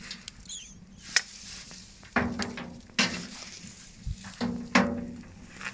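Metal raku tongs knocking against a metal reduction bin full of burning material, about five clanks, each ringing briefly, the loudest about three seconds in and just before the end.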